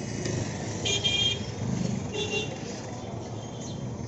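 Street traffic noise with a vehicle horn honking briefly twice, about a second in and again about two seconds in.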